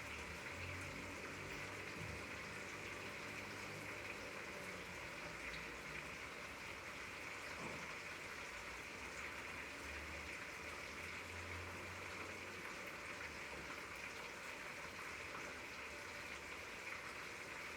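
Hot oil sizzling steadily in a pan as food fries, an even hiss without breaks.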